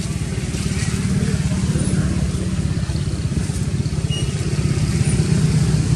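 An engine running steadily off camera: a low rumble of rapid, even pulses that grows a little louder after the first second.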